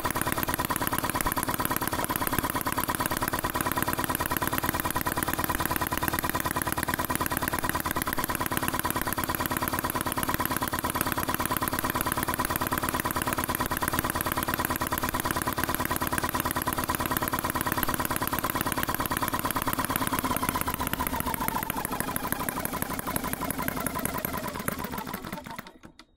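RETROL HM01 four-stroke model engine running at a fast, even beat. In the last few seconds it slows and fades out.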